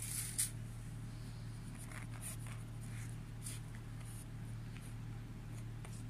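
Quiet room with a steady low hum and a few faint, short scratchy rustles at irregular moments, the clearest right at the start.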